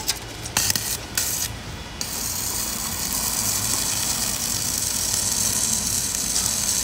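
Electric arc welding on a steel gate post with a small portable welder: a few sharp clicks in the first two seconds, then the arc's steady hiss from about two seconds in.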